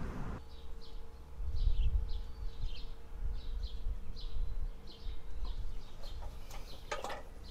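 A small bird chirping repeatedly, a quick run of short falling notes about three a second, over a low rumble. A few sharp clicks near the end.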